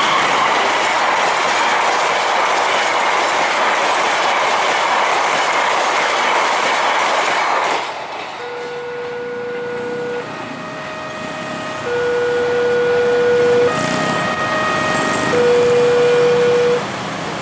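Diesel-hauled passenger train running past over a level crossing, the steady rumble and clatter of wheels on rail ending about eight seconds in as the last coach clears. Then a two-tone warning sounds in long notes alternating between two pitches, each held about a second and a half.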